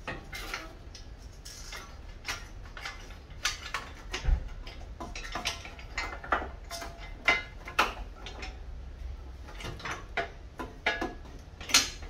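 Irregular light clicks and knocks of metal and plastic parts being handled: a car's new air-conditioning condenser being worked up into place from below behind the front grille.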